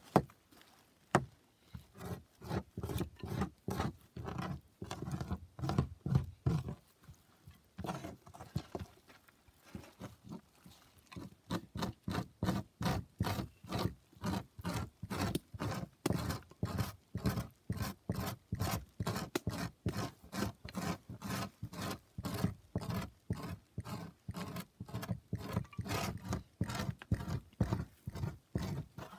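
A hand tool scraping meat and fat off a salmon skin on a plywood board, in short repeated strokes. The strokes come in a heavier run at first, thin out for a few seconds, then go on steadily at about three strokes a second.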